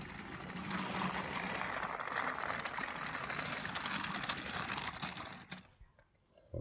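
Battery-powered TrackMaster toy train's small electric motor and gearbox whirring steadily as it runs along plastic track pulling a coal truck; the sound cuts off about five and a half seconds in.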